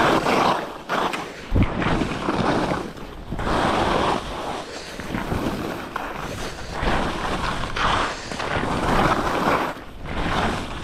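HEAD skis scraping and carving over chopped-up piste snow, the rush of the edges swelling and fading with each turn, mixed with wind on the microphone. One low thud about one and a half seconds in.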